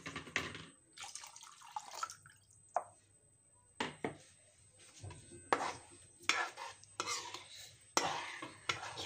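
Steel spoon stirring thick masala gravy in a kadhai, scraping against the pan in a string of separate strokes with short pauses between them, as water is mixed into the gravy.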